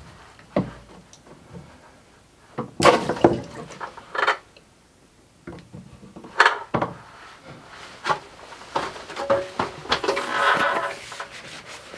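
Irregular knocks, clicks and clatter from hands working at overhead plumbing pipes and fittings, with louder bursts about three seconds in and around six and a half seconds.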